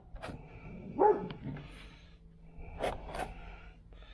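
A dog gives one short bark or yip about a second in. Around it are faint scraping from a plastic spreader working body filler (Bondo) and two sharp clicks near three seconds.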